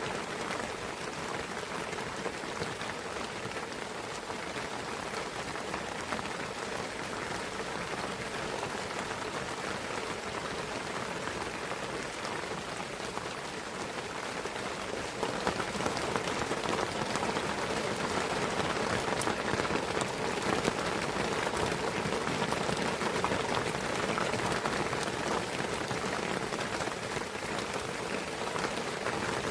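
Steady rain falling in a pine forest, a dense patter of drops that grows a little heavier about halfway through.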